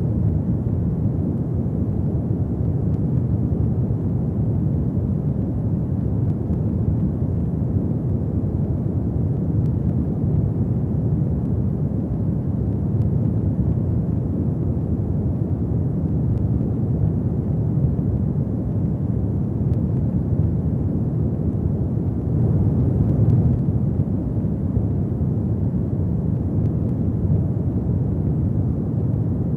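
Wood fire burning in a fireplace: a steady low rumble of flames with faint, scattered crackles, swelling briefly louder about 23 seconds in.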